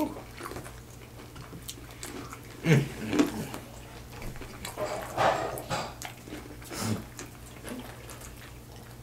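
A dog barking a few times, with two barks close together about three seconds in and fainter ones later.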